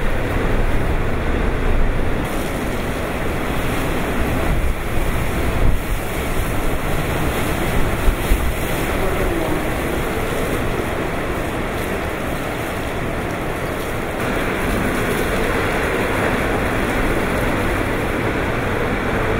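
Typhoon eyewall wind and driving rain, a steady loud rush with wind buffeting the microphone. A few sharper gusts come near the middle.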